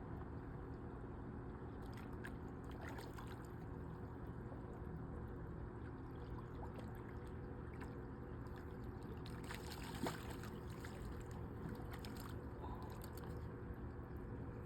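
Water trickling and splashing over a steady low hum, with scattered small clicks and one sharper knock about ten seconds in.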